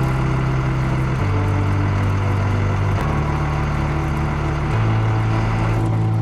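Background music with sustained low notes that change about every two seconds.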